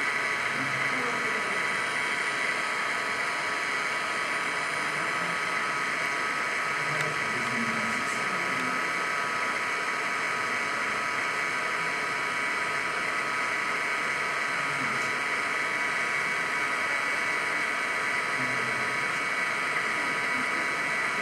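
A steady, unbroken buzzing drone with several held tones, strongest in the upper-middle range, keeping an even level throughout.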